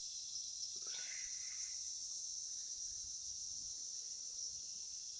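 Night insects singing in a steady, high-pitched chorus.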